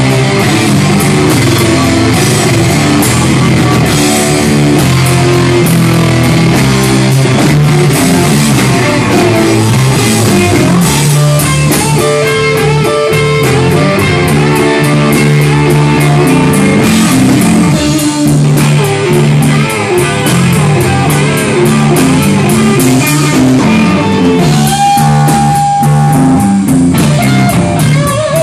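Rock music played loud on electric guitar and drum kit, with one long held high note near the end.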